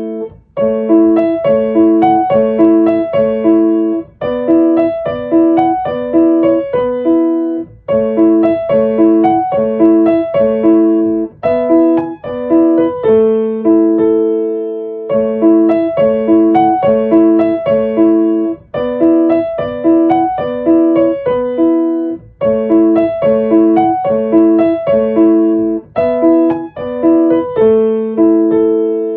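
Solo piano background music: a gentle melody over repeated broken-chord notes in a steady rhythm, played in short phrases.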